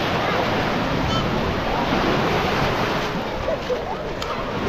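Baltic Sea surf breaking and washing up the beach, a steady rushing noise, with wind on the microphone.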